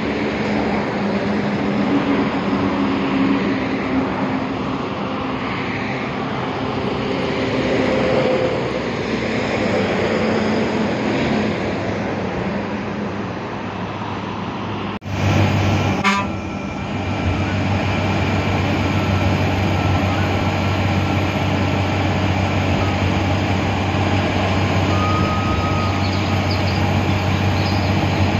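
Bus engine running with a steady drone. About halfway through the sound cuts abruptly to a different, steadier drone with a strong low hum.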